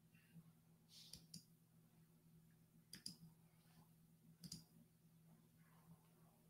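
Faint computer mouse clicks: two or three together about a second in, then single clicks about three and four and a half seconds in, over a faint low electrical hum.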